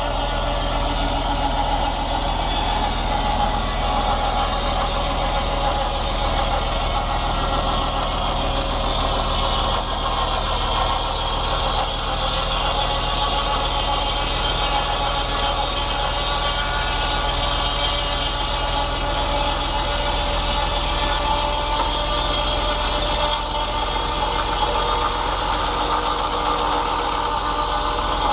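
Fordson Power Major tractor's four-cylinder diesel running steadily, driving a 4 ft 6 in carbide-tipped circular sawmill blade through its PTO, the blade's whine over the engine as the saw cuts a log into a beam.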